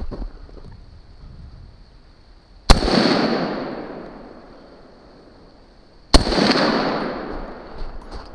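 Two gunshots about three and a half seconds apart, each a sharp loud crack followed by a long echo that fades over a couple of seconds.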